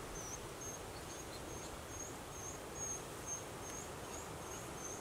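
A short, high chirp repeated evenly about two or three times a second: a small animal's call in the bush, over faint steady background hiss.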